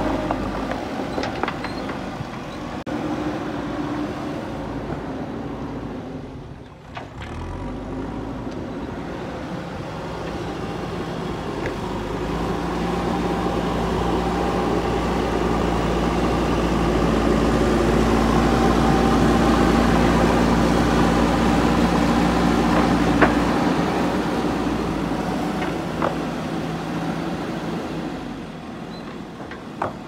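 JCB backhoe loader's diesel engine running under load, growing louder through the middle as the machine drives with a full front bucket, then easing off. Stones clatter in the bucket near the start, and a few sharp knocks come later.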